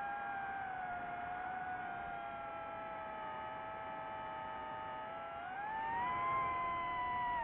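DJI FPV drone's motors and propellers whining: several close tones that drift together in pitch with throttle, rising sharply about five and a half seconds in.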